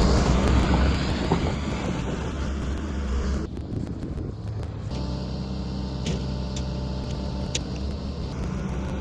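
Kobelco SK120 excavator's diesel engine running, loud and busy with working noise for the first three seconds or so, then dropping to a steadier, quieter run.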